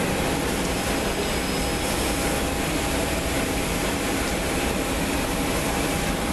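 Steady roar of a jet airliner's engines as it speeds along a rain-soaked runway, with a faint steady whine in the noise.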